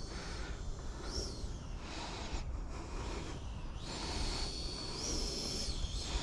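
Wind rumbling and buffeting against the microphone outdoors, with faint high-pitched tones that rise and fall a few times.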